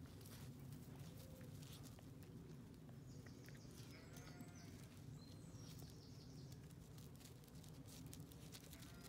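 Faint distant sheep bleating, once about four seconds in and again near the end, over a low steady background rumble.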